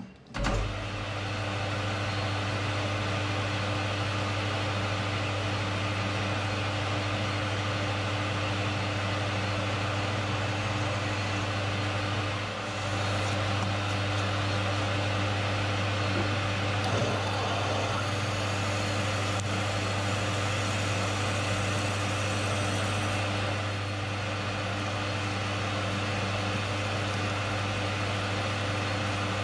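Metal lathe switched on about half a second in, then running steadily with a constant hum while a twist drill in the tailstock chuck bores into the end of the spinning piston blank.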